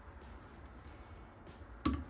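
A centre punch struck once near the end, a short sharp metallic knock marking the spot on the fender's sheet steel where a drain hole will be drilled. Before it there is only a low steady hum.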